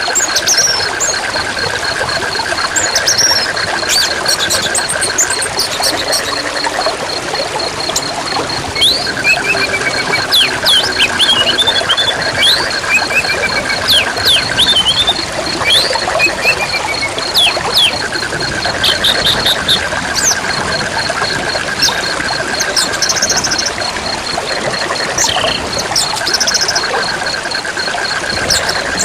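River water running steadily, with a rapid pulsing call that comes in bouts of several seconds, a high steady insect buzz, and birds chirping now and then.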